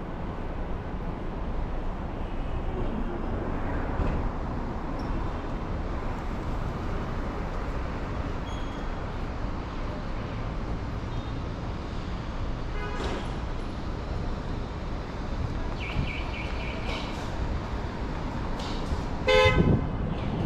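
Steady street traffic noise with vehicle horns: a brief toot about two-thirds of the way in, a high steady beep lasting about a second shortly after, and a louder horn honk near the end.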